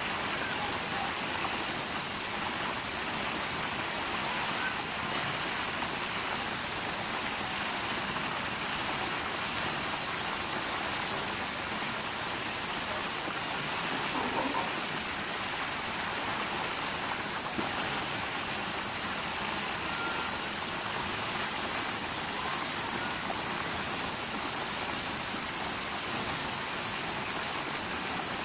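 Steady high-pitched hiss that holds at one even level throughout, with no distinct events.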